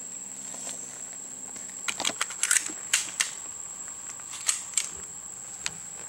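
Sharp metal clicks and clacks from handling a Hi-Point .45 ACP pistol, about a dozen between two and five seconds in and one more near the end; no shots are fired.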